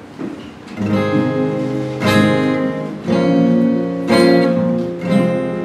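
Two acoustic guitars strumming chords together, a fresh strum roughly once a second, starting about a second in.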